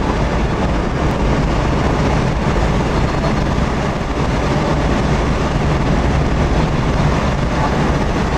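Steady road and engine noise inside the cabin of a car driving at highway speed, starting abruptly.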